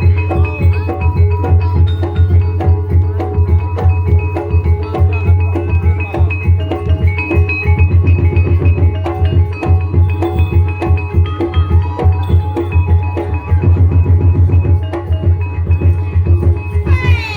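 Ebeg gamelan music: fast, dense drumming over a heavy low pulse, with metal-keyed instruments repeating a short melody. A rising pitch slide comes in near the end.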